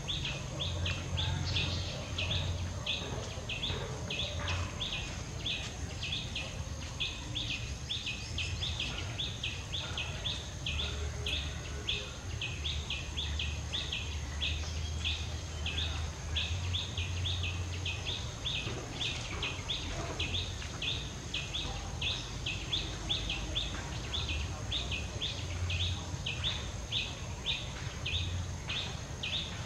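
Forest ambience: a high chirp repeated evenly, about two and a half times a second, over a constant thin high whine and a low rumble.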